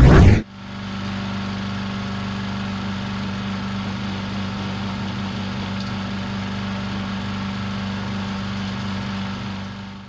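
A short whoosh sound effect at the very start, then the Harbor Freight Predator 6.5 HP (212cc) chipper-shredder's small single-cylinder gas engine running at a steady speed with an even, constant hum.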